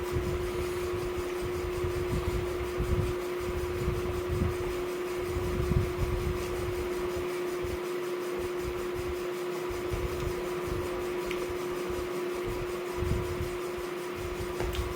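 A steady hum on a single tone, like a room fan, with irregular low thuds and bumps underneath, busiest in the first few seconds.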